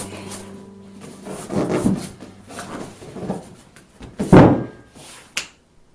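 Seat cushion of a hydromassage table being handled and set back into place: a few rustles and thumps, the loudest thump about four and a half seconds in, then a sharp click shortly before the end.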